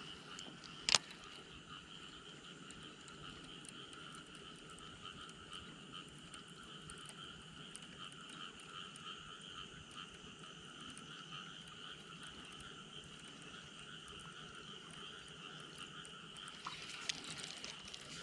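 A steady chorus of many frogs calling together. A single sharp click sounds about a second in.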